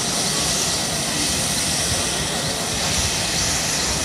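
Westland Lynx helicopter running on the ground with its rotor turning: a steady whine from its twin turboshaft engines over the rush of the rotor.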